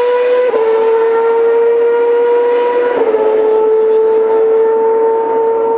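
Formula One car engine at high revs, pulling away down a straight and upshifting about half a second in and again about three seconds in. Between shifts it holds a steady high note.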